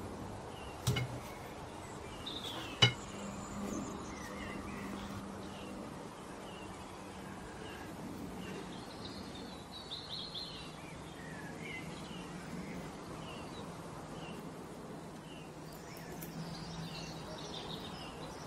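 Small birds chirping in the background throughout, over a faint steady low hum. Twice in the first three seconds, a wire whisk clinks sharply against the metal cake ring.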